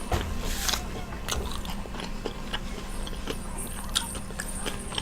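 A person chewing and biting into Chinese takeout food: a run of short, wet mouth clicks and smacks, with a denser bite in the first second.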